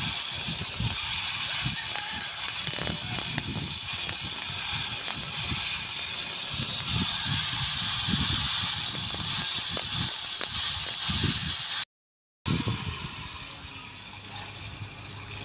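Electric angle grinder running steadily with a high whine, grinding old paint and rust off a car's sheet-metal body at the wheel arch. It stops abruptly near the end, followed by a fainter, falling whine.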